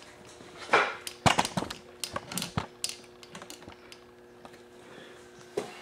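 Handling noise: a quick run of light clicks and knocks about a second in, as equipment is moved and set up, then quiet with a faint steady hum and one more click near the end.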